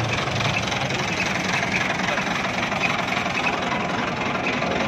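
Ford 4000 tractor's three-cylinder diesel engine idling steadily.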